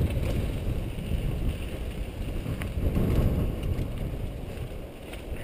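Wind buffeting the microphone over the rumble of a mountain bike's tyres rolling fast across dry dirt and rocks, with a few sharp rattles from the bike.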